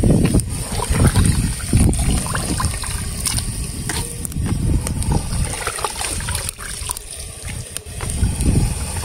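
Raw chicken pieces being washed by hand in a bucket of water: uneven splashing and sloshing, with water dripping off the hands and wet pieces dropped into a metal pot.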